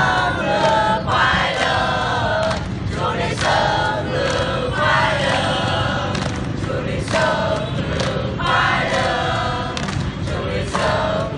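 A large mixed group of men and women singing together in chorus, in phrases of a second or two with short breaks between them.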